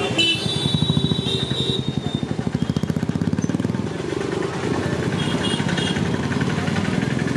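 Busy street traffic with motor scooters and motorcycles passing close, their small engines running with a rapid putter. A vehicle horn sounds in the first two seconds.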